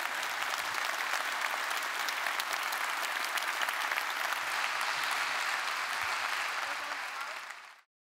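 A large theatre audience applauding, many hands clapping at a steady level; the applause cuts off suddenly near the end.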